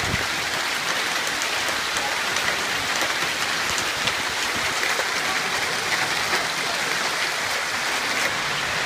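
Hail and heavy rain pelting down in a storm: a dense, steady hiss with many small sharp ticks of hailstones striking the ground and parked cars.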